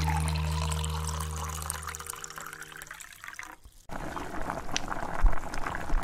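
Water poured from a small metal can into an aluminium drink can, trickling and splashing into it. After a short break near the middle, a second stretch of noisy handling follows, with a few knocks near the end.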